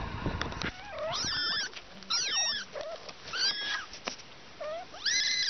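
Kittens mewing: a series of short, high, thin cries that rise and fall in pitch, coming one after another about once a second.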